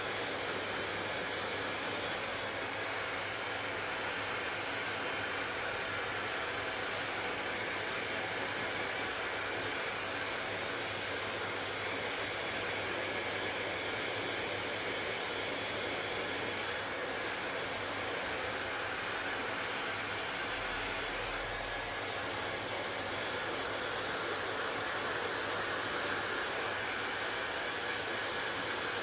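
Hair dryer running steadily: a constant blowing hiss over a low motor hum, with no change in speed.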